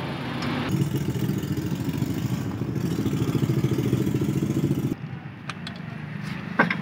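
An engine running with a fast, even beat; about five seconds in it suddenly drops quieter, and a few sharp metallic clicks follow near the end.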